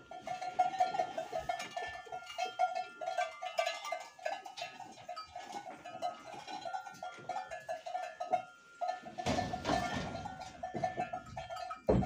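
A livestock bell clanking irregularly, several times a second, as the animal wearing it moves. About nine seconds in there is a burst of rustling, and a sharp knock comes just before the end.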